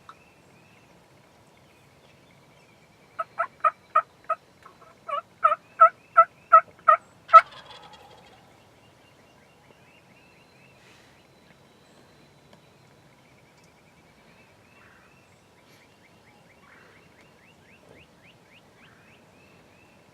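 A series of turkey yelps, about four a second in two runs, ending in a louder, rougher note.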